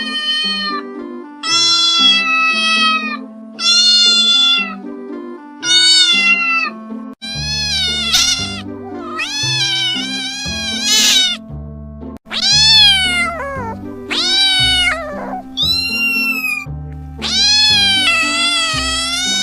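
Domestic cats meowing again and again: about ten long, loud calls that rise and fall in pitch, over background music whose bass line comes in about seven seconds in.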